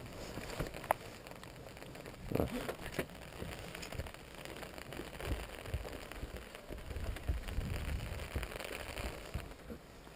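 Steady rain falling on an umbrella overhead, with scattered louder drops ticking on the canopy.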